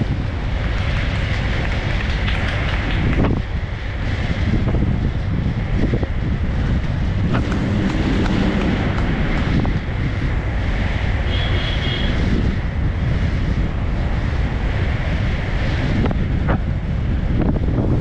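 Heavy wind noise buffeting the microphone of an inline speedskater racing at speed: a steady, loud rumble with a few faint knocks, and a brief high tone about eleven and a half seconds in.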